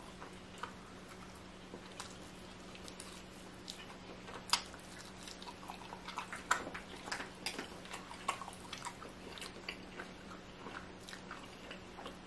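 Close-miked chewing and mouth sounds of a person eating: irregular wet clicks and smacks, a couple of them sharper, over a steady low hum.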